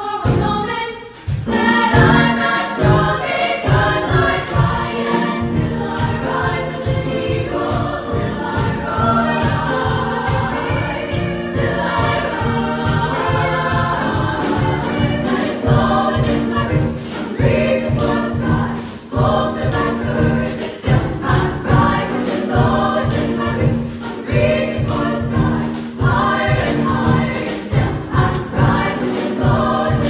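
Treble choir of women's voices singing in harmony, with a steady quick low beat of about three strokes a second underneath.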